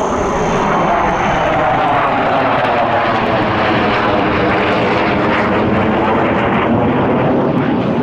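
Two Mitsubishi F-2B fighter jets passing overhead in close formation: a loud, steady jet-engine rush whose tone slowly shifts as they go by.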